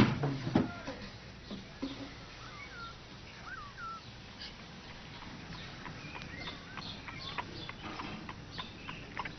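Light clicks and knocks of a cat moving about inside a wooden puzzle box and working at its latch, coming thick and fast in the second half. A few short chirping calls sound earlier.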